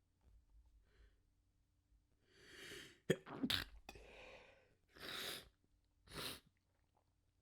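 A person sneezing: a drawn-in breath builds, then a sharp, pinched-off stifled sneeze comes about three seconds in. Two more short sneeze bursts follow about a second apart.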